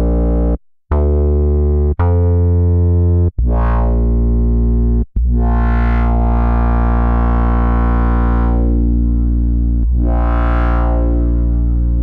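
GForce's software emulation of the Oberheim OB-X analog polysynth playing a bass-heavy sustained note, cut off and restruck several times in the first five seconds and then held. Its filter sweeps open and closed again and again, so the tone keeps brightening and darkening.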